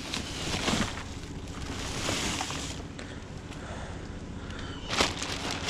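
Wind buffeting the microphone, rising in gusts, with a few sharp knocks about five seconds in.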